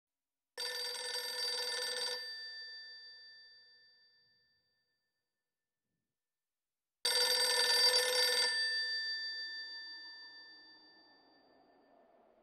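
Telephone bell ringing twice, about six seconds apart. Each ring lasts about a second and a half and then fades out.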